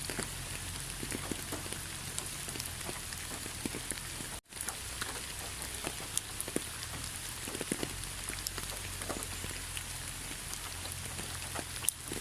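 Rainforest rain falling steadily, an even hiss of rain with many single drop hits standing out. The sound cuts out for an instant about four and a half seconds in, then carries on.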